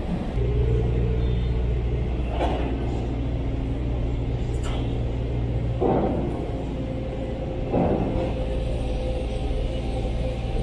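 Steady low engine hum of machinery at a docked ferry, with a few short knocks or clanks along the way.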